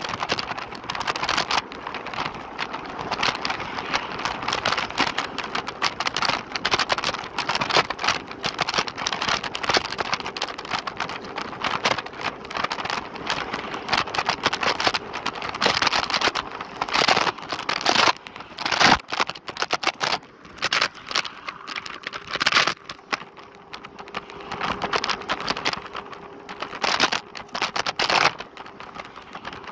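Lime electric kick scooter being ridden: continuous, irregular rattling and road noise from the deck and small wheels over the street surface. A faint steady whine runs under it, and the rattling eases briefly a couple of times.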